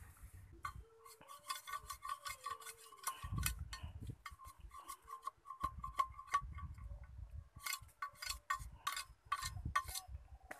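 Large knife blade scraping and shaving a green bamboo stalk in quick repeated strokes: a fast run of sharp clicks with short pauses, starting just under a second in.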